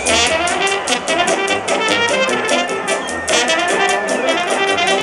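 Serbian brass band playing live: trumpets and other brass over a steady low drum beat.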